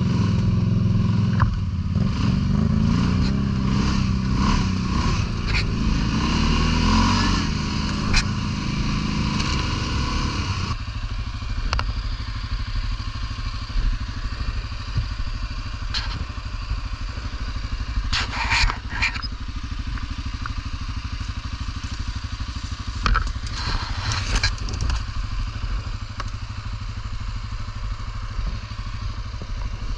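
ATV engine revving, its pitch rising and falling for about ten seconds, then dropping abruptly to a lower, steady running note. A few short scrapes and cracks come later, over the engine.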